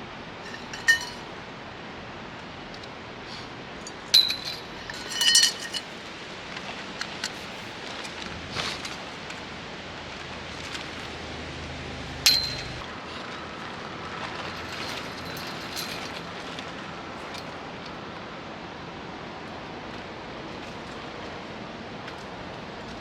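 Camping gear being handled while a tarp is pitched: hard pieces clink together a handful of times, each with a short ring. The loudest clinks come about one, four, five and twelve seconds in, over a steady background hiss.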